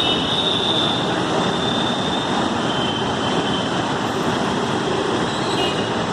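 Steady, loud rushing roar of fast-flowing floodwater.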